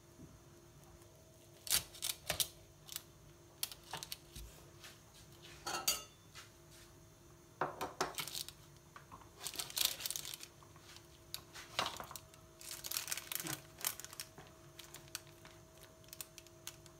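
Metal knife and then a slotted metal spatula scraping and clicking against a metal baking tray while cutting and lifting out a portion of baked hachis parmentier; irregular clicks and short scrapes, busiest in the middle.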